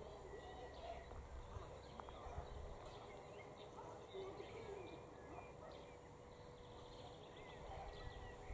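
Faint birdsong: scattered short chirps and calls over quiet outdoor background noise, with a faint steady hum throughout.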